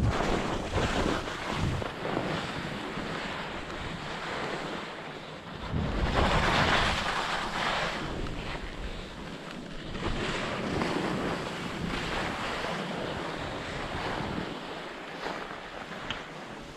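Skis scraping over firm, chopped snow through turns, with wind rumbling on the microphone. The scraping swells loudest for a couple of seconds about six seconds in.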